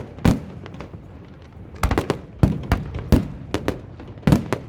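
Fireworks going off: irregular sharp bangs, a quieter gap after the first, then a rapid cluster and one loud bang near the end.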